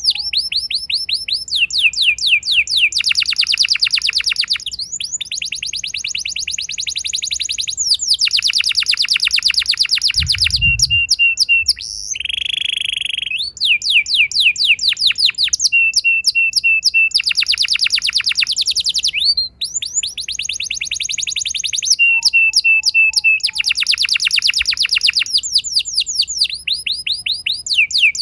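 Canary singing long rolls: runs of rapid, evenly repeated notes lasting a couple of seconds each, broken by short chirps, with one steady buzzing note about twelve seconds in. A brief low thump sounds about ten seconds in.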